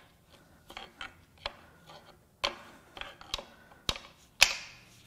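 A steel pry bar clinks and taps against the timing belt and sprockets of a 2.0 L turbo-diesel engine as the belt is levered off. It is a run of irregular metallic clicks, and the loudest one comes near the end with a short ring.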